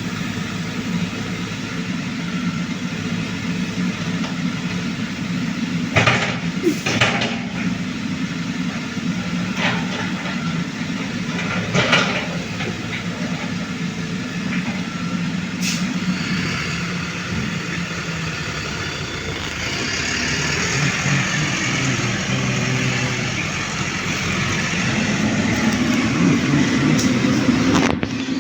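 Engine of a grapple machine loading oil palm fruit bunches, running steadily, with a few sharp knocks about six, seven and twelve seconds in. A louder hiss joins the engine from about two-thirds of the way through.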